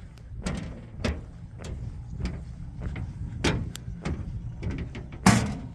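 Footsteps at a steady walking pace: hollow thuds a little under two a second over a steady low rumble, with one louder thud near the end.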